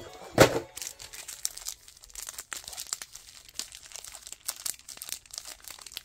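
Foil wrappers of Pokémon trading card booster packs crinkling and tearing, with one louder rip about half a second in, then continuous rapid crackling as the packaging is handled.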